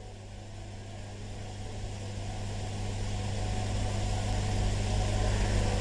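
Steady electrical hum with hiss on the recording, slowly growing louder.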